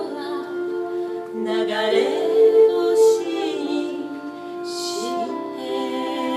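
A song: a singer holds long notes over an instrumental accompaniment, with a few short sung consonants in between.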